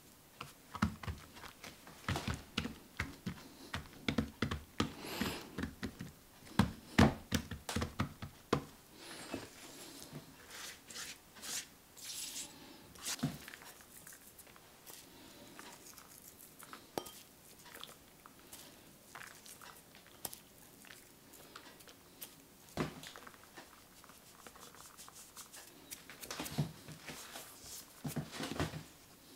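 Hands folding a thin sheet of oiled dough over itself and patting it flat on a wooden board. A quick run of soft slaps and taps comes in the first several seconds, then sparse light touches, then flour is sprinkled over the dough with a few more taps near the end.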